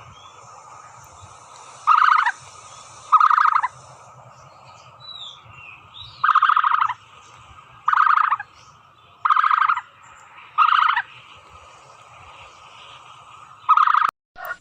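Turkey gobbling: seven short rattling calls, each about half a second, spaced one to three seconds apart.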